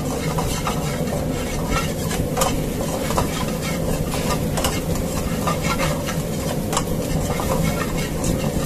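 Steel ladle stirring and scraping chopped onions and green chillies in an aluminium kadai as they sizzle in hot oil, with now and then a sharp click of the ladle against the pan.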